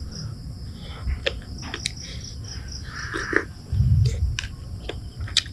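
Close-up mouth sounds of a person chewing a boiled balut duck egg: wet chewing and smacking with small sharp clicks, and a dull thump about four seconds in.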